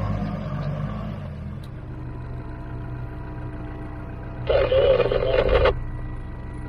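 A 4x4's engine easing off over the first couple of seconds to a low, steady run. About four and a half seconds in, a louder burst of another sound cuts in for about a second.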